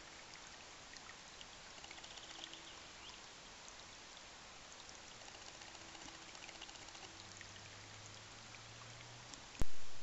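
Shallow rocky creek trickling and babbling steadily over stones. Near the end a single sharp knock cuts in loudly and dies away over about a second.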